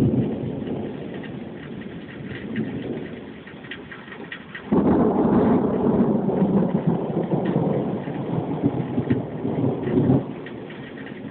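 Thunder rumbling through steady rain: one roll fades away, then a second peal breaks in suddenly about halfway through, rumbles for about five seconds and drops off near the end.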